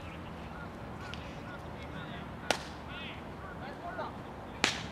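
Two sharp smacks about two seconds apart, the second the louder, typical of a baseball popping into a catcher's leather mitt, over faint calls of players.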